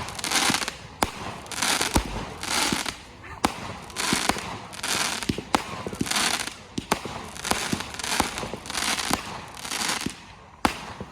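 Small consumer firework cake firing in a rapid run: a hissing launch about every three-quarters of a second, with sharp cracks and pops from the bursts in between.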